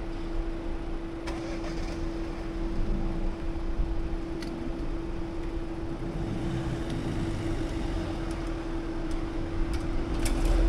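UK level crossing after a train has passed: a steady single tone from the crossing equipment sounds on while the barriers lift, over a car engine idling at the barrier and background road noise. A low rumble swells near the end.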